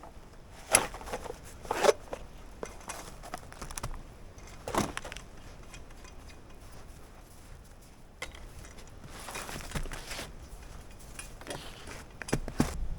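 Footsteps crunching in snow with a few brief knocks and scrapes, scattered and irregular, as a person moves up to a tree with a folding saw to begin cutting.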